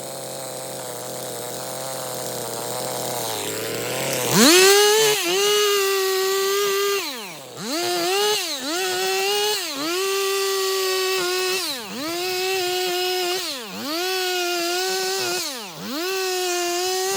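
Stihl MS 250 two-stroke chainsaw idling, then opened to full throttle about four seconds in. It holds at high revs for a second or two at a time and drops back and revs up again about six times, as in a run of cuts bucking firewood.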